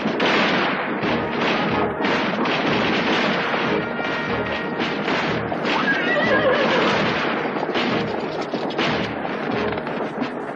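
Film action soundtrack: dramatic music over a cavalry charge, with galloping horses and scattered gunshots. A horse whinnies about six seconds in.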